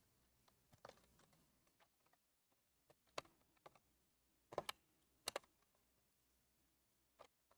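Metal tweezers working small plastic wire connectors loose from a robot vacuum's circuit board: a handful of sharp clicks, some coming in quick pairs.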